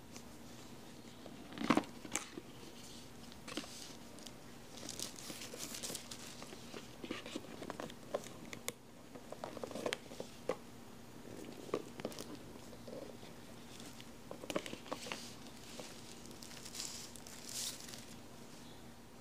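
Unboxing a smartphone: a cardboard box handled and opened, with scattered taps and scrapes and crinkling of plastic wrapping as the phone is lifted out. A sharper knock comes just under two seconds in.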